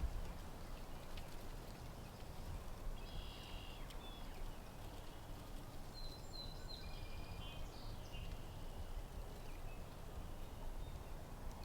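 Steady low wind rumble on the microphone. Faint high bird calls come in about three seconds in and again in a short series around six to eight seconds.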